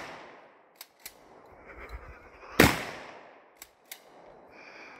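A single shotgun shot about two and a half seconds in, its report echoing and dying away over about a second. At the start, the echo of a shot fired just before is still fading, and a few faint clicks fall in between.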